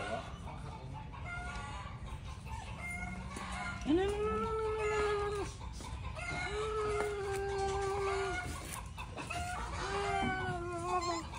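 Roosters crowing: three long held crows, the first about four seconds in, the others about two seconds apart, with shorter, softer calls before them.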